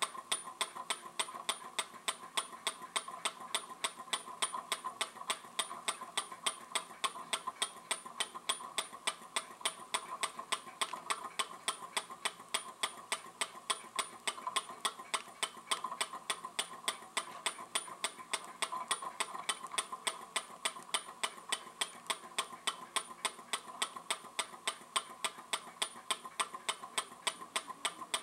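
Small laminar flow Stirling engine running steadily, its moving parts giving a rapid, even clicking several times a second that holds its pace throughout.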